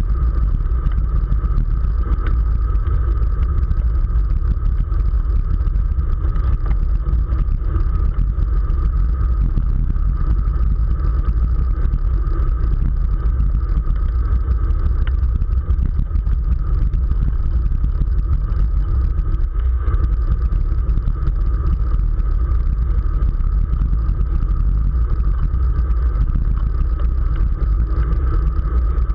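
Wind buffeting the microphone of a camera on a road racing bicycle riding at speed: a loud, steady rumble with a thin, constant hum over it.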